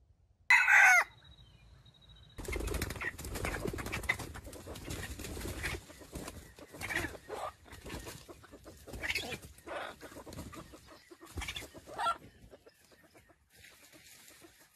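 A red junglefowl rooster gives one short, loud call about half a second in. From about two seconds in there is a long stretch of rustling noise with many short, scattered bird calls.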